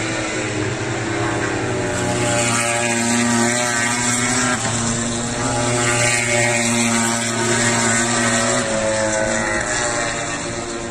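MotoGP racing motorcycles running at high revs on the circuit, several engine notes overlapping and shifting in pitch, with one falling away in the last few seconds as a bike goes past.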